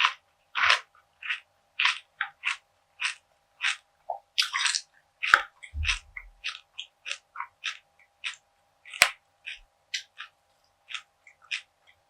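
Close-miked chewing of crunchy perilla seed gangjeong, crisp crunches coming about twice a second. A faint steady hum runs underneath, and there is one low thud about six seconds in.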